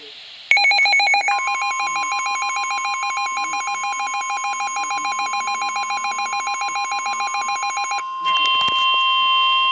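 Emergency alert tones before a severe thunderstorm warning: the NOAA Weather Radio warning alarm, a steady 1050 Hz tone starting about a second in. Over it runs a second electronic alarm that warbles rapidly, then changes to a steadier, higher two-tone beep about eight seconds in.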